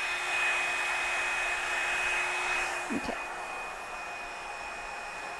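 Revlon One Step hot-air brush dryer running, a steady rush of air with a high whine. A little under three seconds in, it goes quieter and its low hum drops out.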